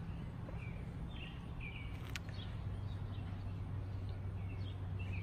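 Small birds chirping in short, scattered calls over a steady low hum, with a single sharp click about two seconds in.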